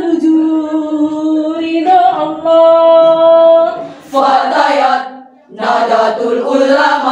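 Women's choir singing a cappella. For the first four seconds or so they hold long, steady notes. Then a new phrase begins, with a short break about five and a half seconds in.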